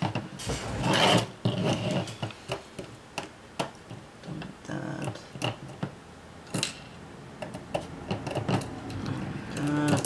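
Small metal and plastic parts of a camcorder tape mechanism clicking, rattling and scraping as the mechanism is handled and worked apart with a screwdriver. There are scattered sharp clicks throughout, and a busier scraping rattle between about half a second and two seconds in.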